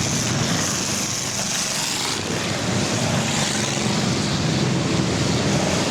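Engines of several full-size cars racing together in an enduro, a steady mass of engine noise with a slight dip about two seconds in.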